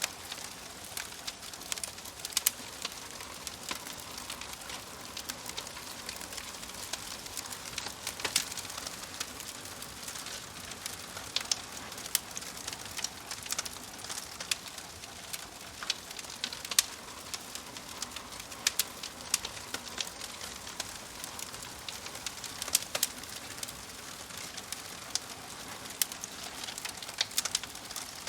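Wood fire in a fireplace crackling: irregular sharp pops and snaps over a steady hiss of burning logs.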